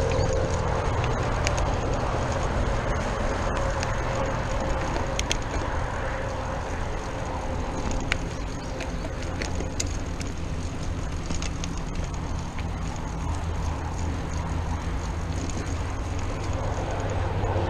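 Mountain bike ridden over a dirt singletrack, heard from a chest-mounted camera: a steady rush of wind and tyre rumble, with scattered sharp clicks and rattles from the bike.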